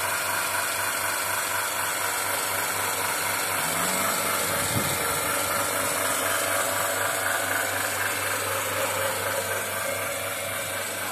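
Single-bucket milking machine running: its engine-driven vacuum pump gives a steady mechanical drone with a constant hiss over it.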